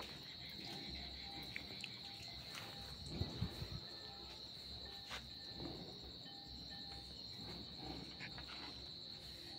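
A steady, high-pitched chorus of crickets or other night insects. A few soft low knocks come about three seconds in.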